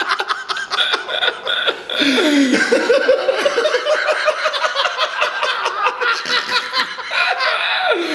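Men laughing loudly and without a break.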